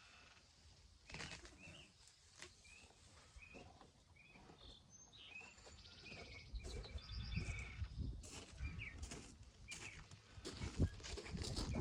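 Small birds chirping repeatedly in short calls, over a low rumble with scattered rustles and knocks that grow louder near the end.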